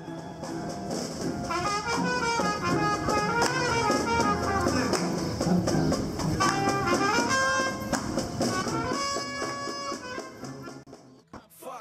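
Street brass band playing jazz, with trumpets over a sousaphone bass line; the playing drops away near the end.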